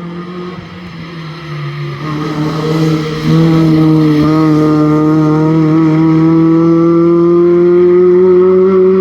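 Rally car engine pulling hard under acceleration, its pitch climbing steadily through a long run in one gear. It grows much louder about three seconds in.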